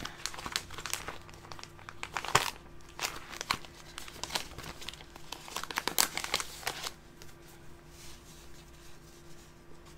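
Paper sticker sheets rustling and crinkling as they are handled and leafed through, busy for about seven seconds, then quieter and sparser.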